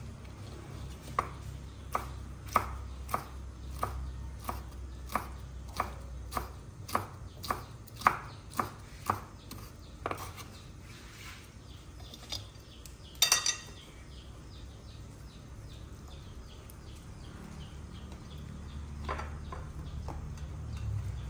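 Knife chopping soaked wood ear mushrooms on a wooden cutting board, even strokes about twice a second for the first ten seconds or so. A louder clatter of a few knocks comes about 13 seconds in, and a single knock near the end.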